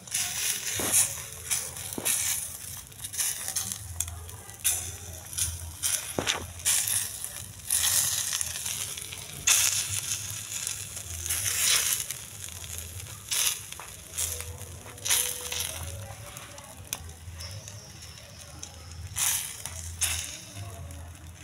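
Eggs frying in a hot dry pan with no oil, crackling and sizzling, while a metal fork scrapes and taps against the pan in irregular bursts.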